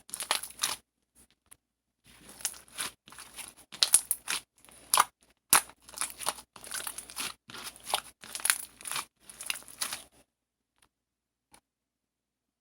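Crinkling and crackling handling noise in irregular bursts, stopping about ten seconds in.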